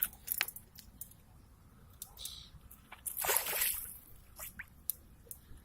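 Water sloshing and dripping, with scattered small clicks and one longer splashing rush about three seconds in.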